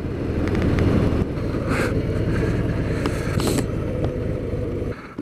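Harley-Davidson Sport Glide's Milwaukee-Eight 107 V-twin engine running steadily at low road speed through its stock, quite quiet exhausts. The sound drops away suddenly near the end.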